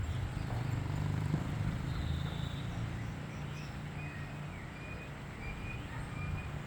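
Wind rumbling on the microphone outdoors, with a few faint high chirps in the second half.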